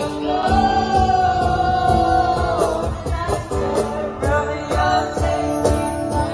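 Live band music with a singer: one long held note for about two seconds, then shorter sung phrases, over drums.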